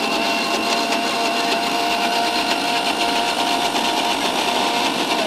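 Electric mixer grinder with a steel jar running at full speed, blending cooled curry and almonds: a loud, steady high motor whine that is switched off right at the end and starts to wind down.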